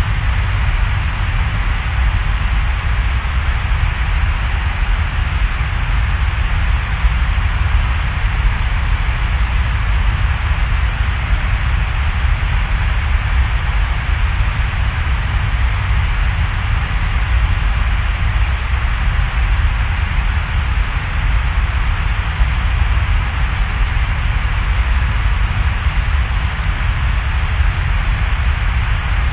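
Steady hiss with a deep rumble underneath, even and unchanging: a continuous background noise track.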